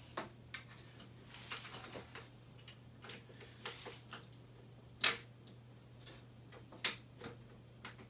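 Scattered light clicks and knocks of white PVC pipe shafts being fitted onto a Radio Flyer wagon's front, with two sharper knocks about five and seven seconds in, over a steady low hum.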